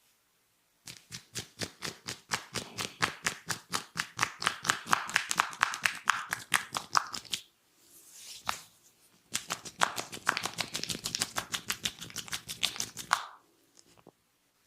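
Rapid percussive hand strikes of a barber's head massage, about seven a second, in two runs of several seconds with a short pause between.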